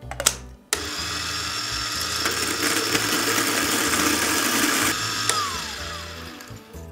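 Kalita Next G electric coffee grinder grinding beans: it starts with a click and runs steadily for about four seconds. It is then switched off and the motor spins down with a falling whine.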